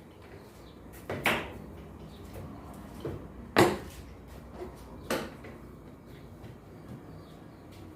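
Knocks and clatter of a washing machine being taken apart by hand: four or five sharp, short knocks, the loudest about three and a half seconds in.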